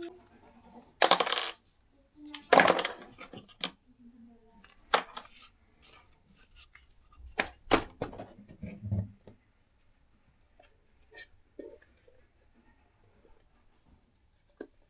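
Unboxing packaging being handled: two brief scraping, rustling bursts in the first three seconds, then scattered sharp clicks and a few light knocks, thinning out to faint ticks after about nine seconds.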